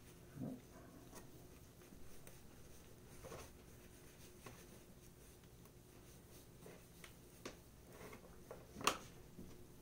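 Faint rubbing of a hand pad worked in small circles over a guitar body's finish, with a few light knocks, the sharpest near the end.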